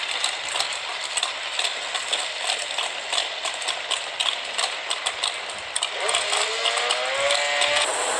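Drag-race engines of a muscle car and a sport bike running at the start line with a rapid, irregular crackle, then about six seconds in an engine's pitch climbs steadily as it revs up for the launch.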